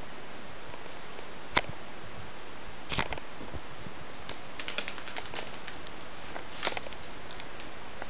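A giant silk moth's wings fluttering and tapping against a wall and door frame: scattered light ticks and patters, with a sharper tap about a second and a half in and a run of quick ticks in the middle, over a steady hiss.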